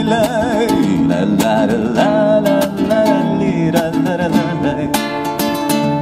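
A man singing with vibrato to a strummed acoustic guitar. The voice drops out about four seconds in while the guitar keeps strumming chords.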